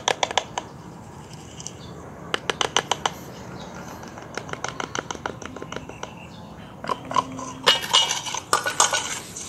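Quick runs of light clicks and taps from a small plastic cup of charcoal-powder mixture being handled and tipped out onto concrete. A denser, louder clatter comes near the end.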